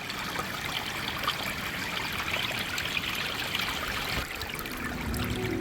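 Stream water running and splashing in a steady flow, with faint music starting to come in near the end.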